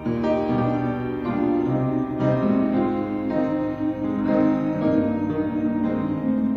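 Slow, quiet piano playing, sustained chords changing about once a second or so.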